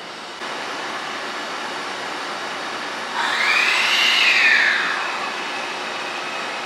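Hankyu 1000 series electric train running, with a steady rush of noise. About three seconds in, its IGBT-VVVF inverter whine rises in pitch and then falls back over roughly two seconds.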